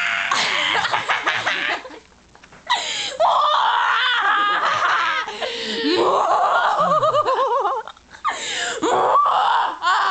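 Two female voices laughing and making silly, warbling vocal noises, with a short pause about two seconds in.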